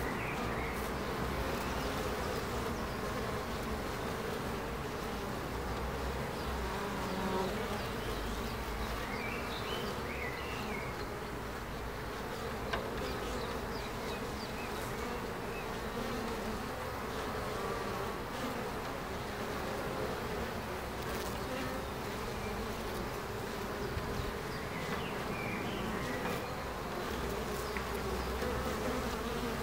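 Honeybees buzzing steadily at a wooden hive entrance as foragers fly in and out, a continuous even hum of many wings.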